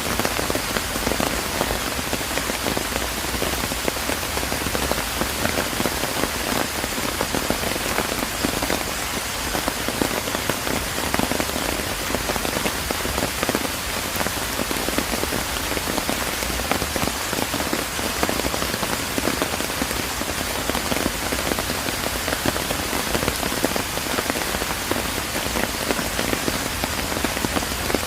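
Steady rain falling on surfaces, a dense even patter of many drops.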